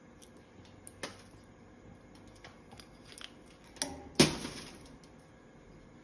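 Scattered sharp cracks and clicks as a green-winged macaw bites at a nut held in its foot, with one loud crack just after four seconds.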